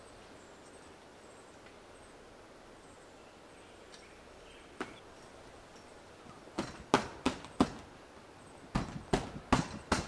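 Hands slapping the canvas wall of a Kodiak Flex-Bow canvas tent to knock pollen off it: one sharp slap a little before the middle, then two quick runs of about four slaps each.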